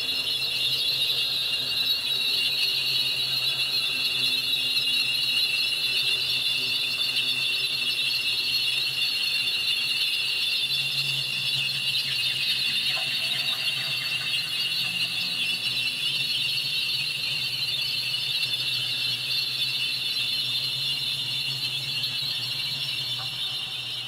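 Cicadas singing: a loud, steady, high-pitched buzzing drone that holds without a break and starts to fade near the end.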